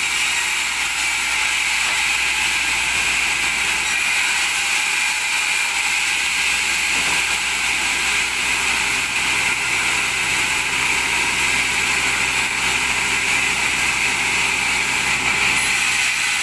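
Sawmill saw machinery running steadily while cutting wood: a continuous, even mechanical noise with no pauses or changes.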